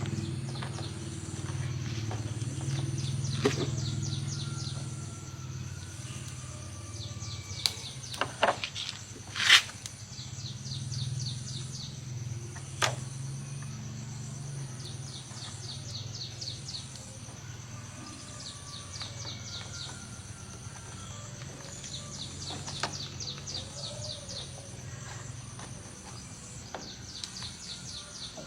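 Outdoor background: a steady low hum under short, rapid chirping trills that repeat every couple of seconds, with a few sharp knocks around the middle, the loudest about nine and a half seconds in.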